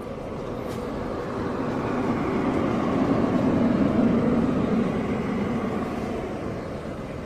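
A passing vehicle: a rushing noise that slowly swells to a peak about four seconds in, then fades away again.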